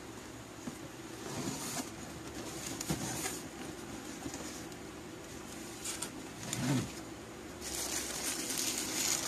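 Faint handling of a cardboard shoe box: scattered light taps and knocks as it is opened, then tissue paper rustling inside it near the end.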